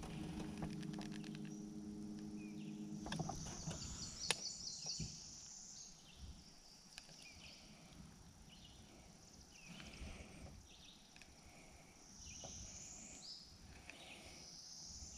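Quiet outdoor swamp ambience: a low steady hum for about the first three seconds that then stops, followed by scattered high chirps.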